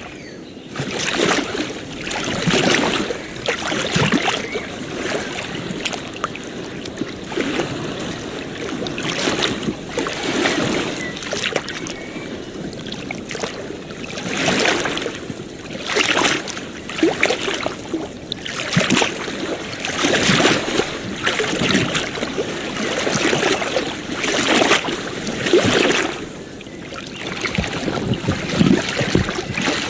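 Ocean waves washing and splashing on a shore, a continuous rush that swells in irregular surges every one to three seconds.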